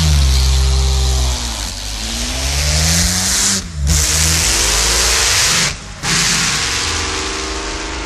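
Auto Union Typ C's supercharged 6-litre V16 racing engine revving, its pitch rising and falling repeatedly, with two short breaks in the sound at about three and a half and six seconds in.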